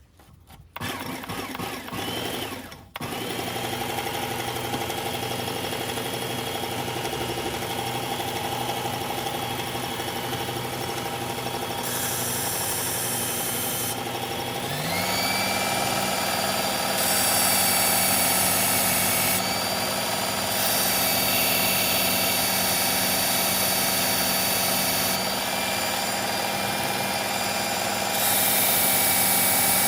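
Work Sharp electric belt knife sharpener running on a fine belt. The motor starts about a second in, stops briefly, restarts and then runs steadily, with its pitch stepping up about halfway through. A knife blade grinding on the belt adds a hiss in several passes of a few seconds each.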